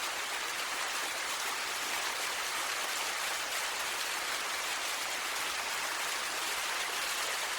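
Steady rushing water noise: an even hiss with no separate drops or events.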